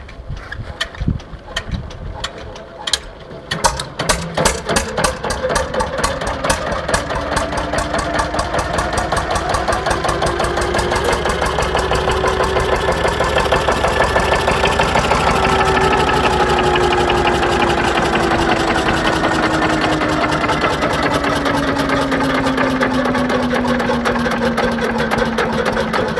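1957 OTO Melara C25 R4 tractor engine being started by hand: a few uneven first firings, then it catches about four seconds in and settles into a steady running beat. The engine speed rises a little, then slowly eases off toward the end.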